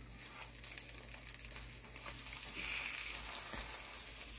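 Two eggs frying in a nonstick frying pan: a steady sizzle with light crackling that grows slowly louder.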